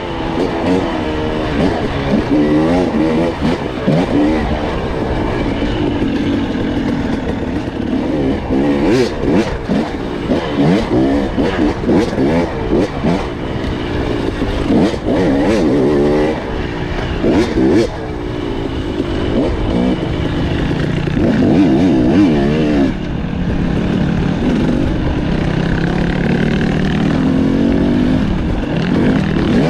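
Off-road motorcycle engine revving up and down as it rides a trail, its pitch rising and falling every second or two, with occasional sharp knocks.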